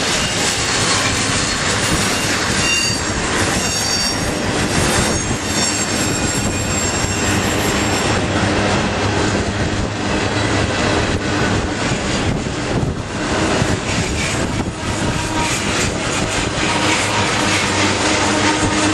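A train rolling past with a continuous rumble and clatter of wheels on rail. Thin, high squealing tones from the wheels come and go over it in the first half.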